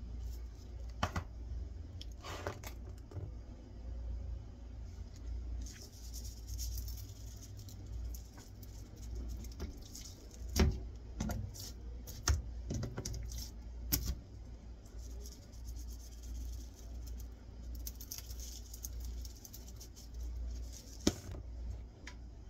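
Kitchen handling sounds while seasoning raw skirt steaks on a cutting board: a few sharp knocks and thumps from the seasoning jar and the meat on the counter, loudest in the middle and near the end, with stretches of faint grainy rustle from the shaken seasoning, over a steady low hum.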